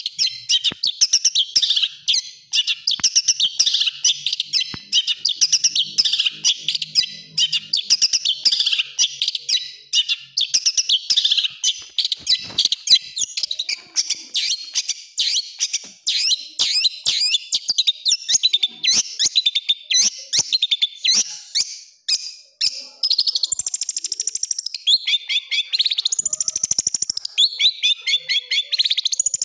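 Long-tailed shrike (cendet) singing a fast, unbroken, harsh chattering song packed with varied rapid notes, the kind of full-of-filler song used to tutor captive cendet. Near the end it shifts to quick runs of repeated falling notes.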